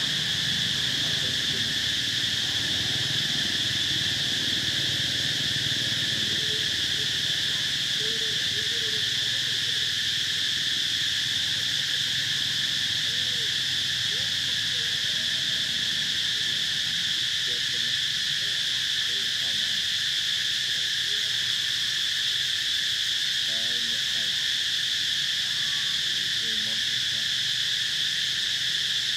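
A steady, unbroken insect chorus, a high drone that does not change, with a faint low murmur and a few faint short chirps beneath it.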